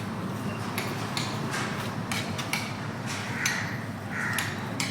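Irregular sharp knocks, about two or three a second, over a steady background noise.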